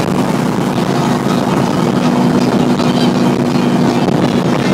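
V8 engine running at a steady cruise, a constant low drone mixed with tyre and wind noise, heard from inside the vehicle at motorway speed.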